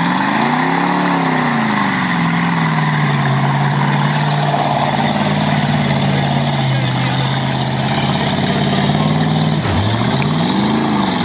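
An old sedan's engine revving as the car drives off across a muddy field. Its pitch rises and falls in the first second or two, holds steady, then dips and climbs sharply again near the end, over a steady hiss.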